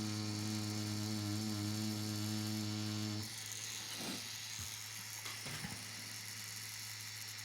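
Tattoo machine buzzing steadily while lining, then switched off about three seconds in, followed by a few faint clicks and handling sounds.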